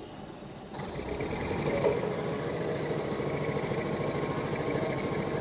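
Diesel engine and running gear of a BEML WRB-1 railbus as it rolls slowly, coming in suddenly about a second in and then running steadily with a low rhythmic pulse.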